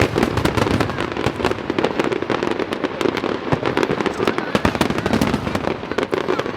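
Aerial fireworks going off in a dense, continuous barrage of crackling bangs and pops, many per second.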